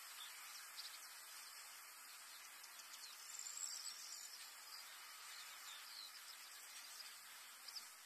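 Faint outdoor nature ambience: a steady high hiss with scattered short, high chirps throughout, a little louder about three and a half seconds in.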